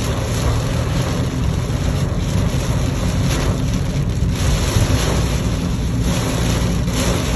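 Heavy rain pelting the roof and windshield of a 2021 Mitsubishi Mirage, heard inside the cabin while driving, over a steady low drone of the engine and tires on the wet road.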